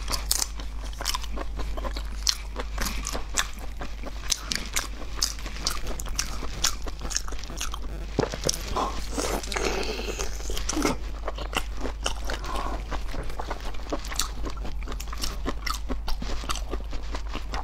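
A person biting and chewing raw marinated Mozambique tiger prawns: a steady run of short, sharp crunches, several a second, with a softer, wetter stretch of mouth sounds about halfway through.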